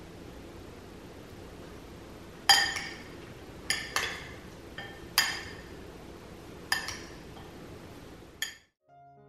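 Metal spoon clinking against a glass mixing bowl while tossing chopped vegetables and tofu in marinade: six sharp, ringing clinks, the first and loudest about two and a half seconds in, over a low steady hiss.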